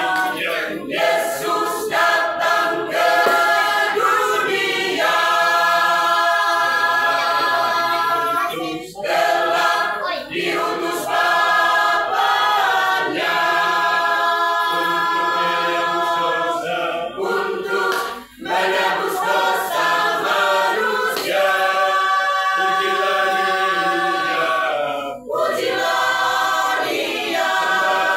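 Mixed choir of men and women singing masamper, the Sangihe-Talaud a cappella part-song, in held chords with no instruments. Phrases break off for a moment several times, most clearly about 9, 18 and 25 seconds in.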